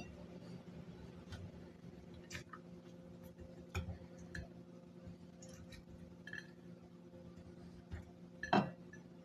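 Scattered light taps and clinks of kitchen containers and ingredients being handled, the loudest a knock about eight and a half seconds in, over a low steady hum.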